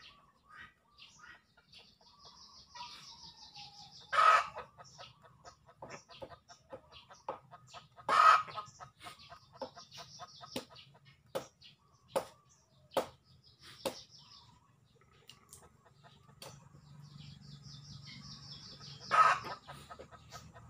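Chickens clucking, with three short, loud calls about four, eight and nineteen seconds in, among scattered sharp clicks.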